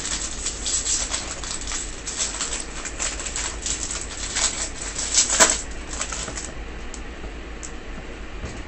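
Foil wrapper of a 2016 Topps Series 2 jumbo card pack being torn open and crumpled by hand: a crackling crinkle, loudest about five seconds in, that dies down after about six and a half seconds as the cards are pulled out.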